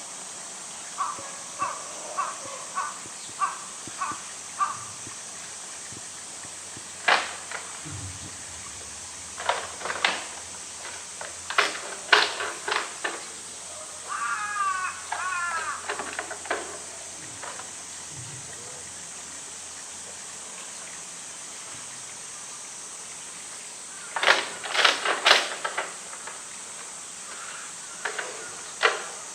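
A crow caws about seven times in a row. It is followed by scattered sharp knocks and clatters, loudest in two bunches, as a polar bear paws and bites a bamboo tube against the concrete floor.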